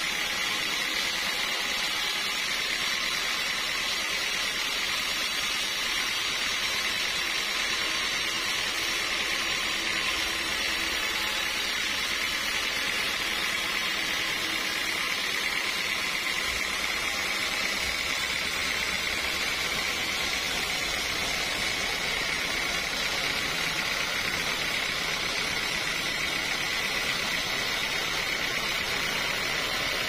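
A band sawmill blade cutting lengthwise through a large mahogany log, a steady whine with a constant hiss of sawing.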